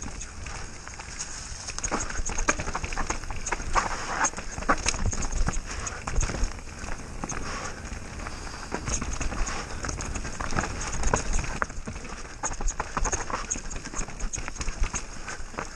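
Downhill mountain bike rolling fast over a dirt and stone trail: tyres crunching on the ground and a continuous uneven clatter of knocks and rattles from the bike over bumps, with wind rumble on the microphone.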